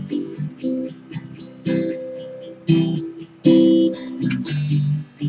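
Guitar strummed in an instrumental break, a run of separate chords with the notes ringing on between strokes. The strongest strum comes about three and a half seconds in.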